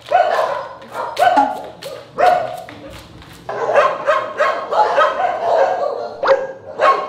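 Shelter dogs barking: single barks about a second apart, then after a short pause a quick, overlapping run of barks.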